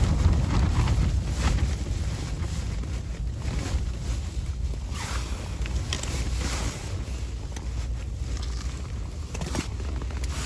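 Gusty wind buffeting the microphone: a steady low rumble that swells and eases with the gusts.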